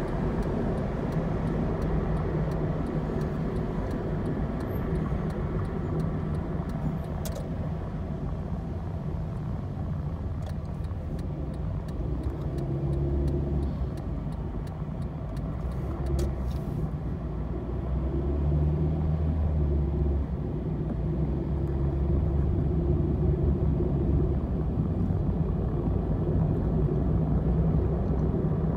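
Steady low rumble of road and engine noise inside a moving car's cabin at motorway speed, swelling slightly a few times, with a few faint clicks.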